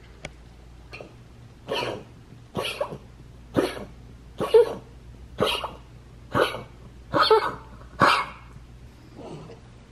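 A dog hacking and wheezing in a run of harsh coughs, about one a second, some nine in all, the last one fainter. This is the cough of a dog whose heart valve does not close, a sign of heart failure.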